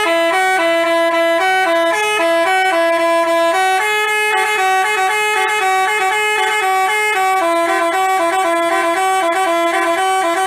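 Basuri telolet bus horn playing a tune: a loud, continuous run of quickly changing notes in two voices, the melody moving higher through the middle stretch and back down.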